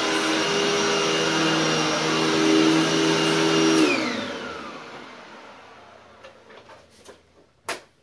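Hoover Tempo Widepath bagged upright vacuum cleaner running steadily, then switched off a little under four seconds in, its motor winding down with a falling whine to a stop. A few faint knocks follow, and one sharp click near the end.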